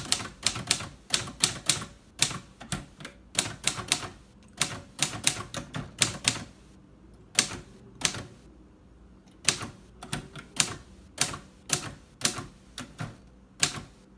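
Keys of a 1955 Royal Quiet Deluxe portable manual typewriter being typed: sharp, irregular keystroke clacks, a few a second in runs with brief pauses.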